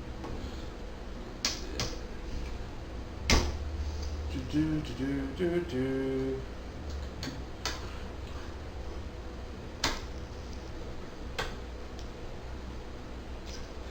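About six scattered sharp clicks and knocks of PC hardware being fitted, the loudest about three seconds in, as DDR2 memory sticks are pushed into the motherboard's slots, over a steady low hum.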